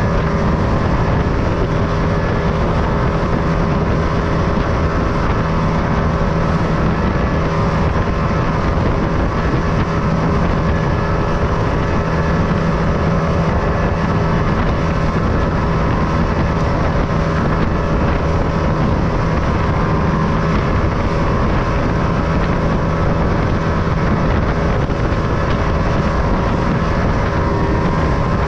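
Boat engine running steadily under way, a constant hum with water rushing and splashing along the hull in choppy sea.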